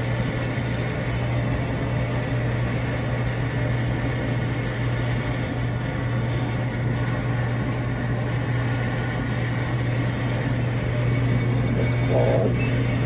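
Samsung DV45H7000EW electric clothes dryer running after repair: steady hum of the drum motor and blower with the drum turning. The owner takes the even running sound as a good sign.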